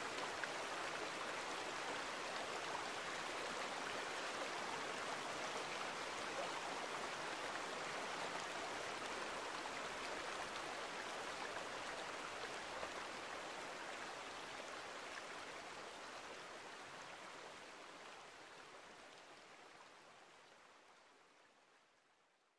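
Water running steadily in a stream, an even rush with no distinct splashes, fading out over the last eight seconds or so.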